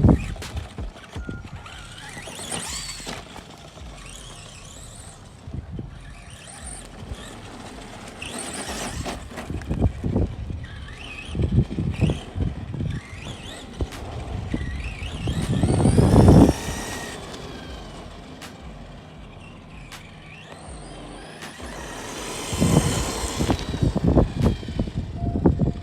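Arrma Granite Voltage 1:10 RC monster truck's electric motor running on a 2S LiPo, whining up and down in pitch with the throttle as it is driven. It gets loudest in surges about sixteen seconds in and again near the end, as the truck comes close.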